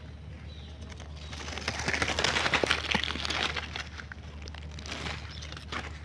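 Kingfisher chick fluttering its wings in the grass: a dry rustling flutter of about two seconds, loudest in the middle, over a steady low hum.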